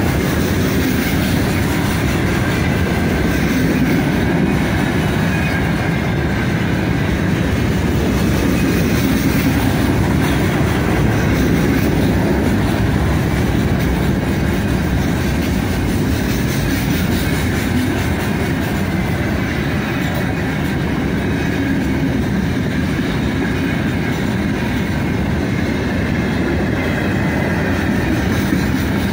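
Freight train's open gondola wagons rolling past close by at steady speed: a loud, even rumble of steel wheels on the rails.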